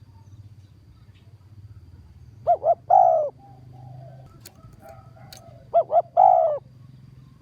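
Spotted dove cooing: a three-note call of two short notes and a longer drawn-out note, given twice about three seconds apart.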